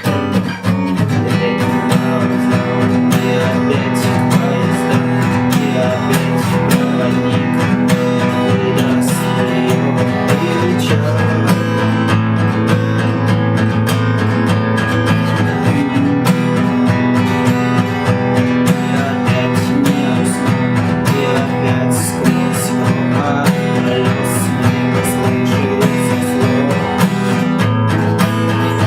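Acoustic guitar strummed in a steady rhythm, with percussive muted knocks on the strings between strokes (the 'стук' strumming technique); the chord changes a few times.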